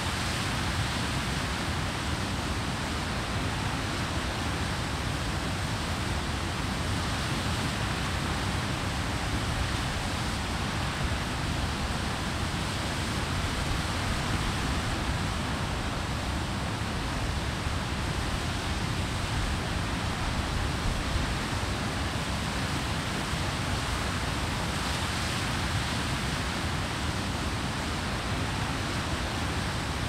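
Water pouring over a weir: a steady, even rush of falling water that does not change.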